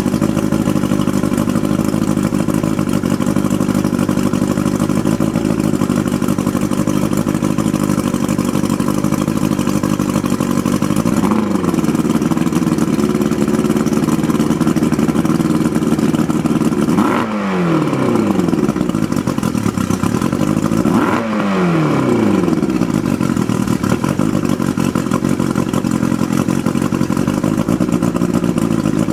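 1994 Mariner 40 hp two-stroke outboard idling steadily on flushing muffs with the lower unit out of the water, warming up after a cold start. It is briefly revved three times past the middle, the last two about four seconds apart, and each time the pitch falls back to idle.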